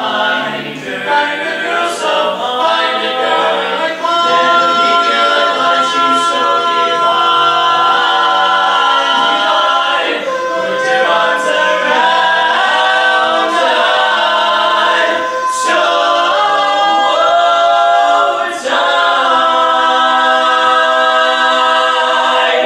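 Male quartet singing a cappella in close four-part barbershop harmony, moving through long held chords and ending on a big final chord that cuts off near the end.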